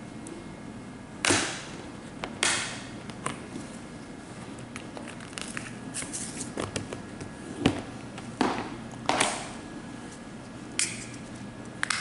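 Irregular sharp clicks and taps of a diamond-painting pen working among small plastic resin drills and the canvas, some clicks trailing a brief rattle.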